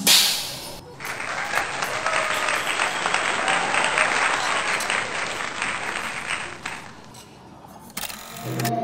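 A crowd applauding, many hands clapping. It swells after a brief loud rush of noise at the start and fades away about seven seconds in, and music begins just at the end.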